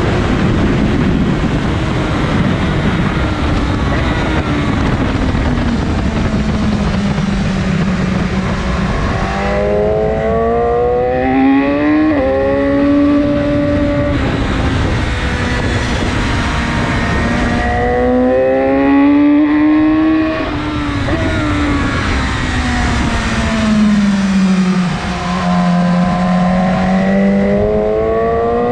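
A 2019 BMW S1000RR's inline-four engine with an Akrapovic exhaust, heard onboard at track speed: its pitch climbs hard under acceleration several times and slides down as the bike slows for corners. Heavy wind noise on the microphone covers the engine for the first several seconds.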